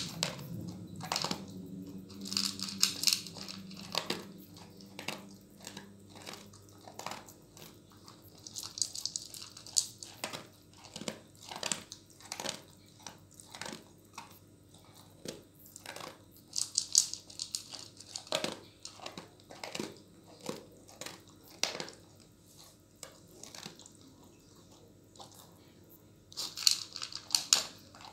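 A dog chewing dry kibble: irregular crisp crunches and clicks, with short bursts of rapid crunching every several seconds.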